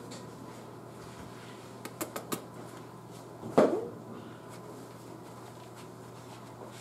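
Quiet room with a steady low hum. A quick run of three light clicks comes about two seconds in, and a single louder knock follows about a second and a half later.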